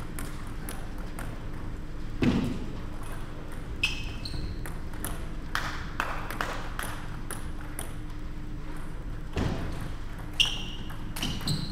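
Table tennis rally: the ball clicking off bats and table in quick, irregular succession. Shoe squeaks on the sports-hall floor come at about four seconds and again near the end, and there are two low thuds.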